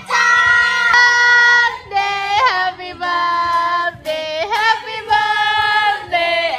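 A high-pitched voice singing long held notes, gliding from one pitch to the next.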